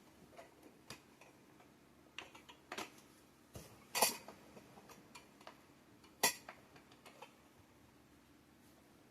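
Light clicks and clatter of mini greenhouse shelf frames and poles being fitted together, with two sharper knocks about four and six seconds in.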